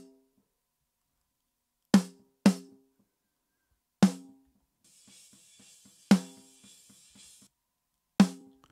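Snare drum track of a screamo rock mix played through a gate: five sharp snare hits, two of them close together, each ringing briefly on a low note near 200 Hz, with the gaps between cut to silence. About halfway through, a faint hiss and soft ticks of leakage pass between the hits.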